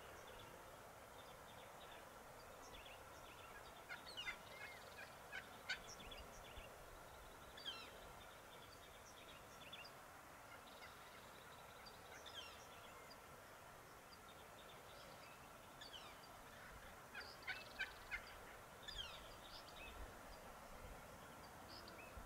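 Wild turkey hens calling faintly: short, sharp high calls in scattered clusters, a few about four to six seconds in and a denser run around seventeen to nineteen seconds in.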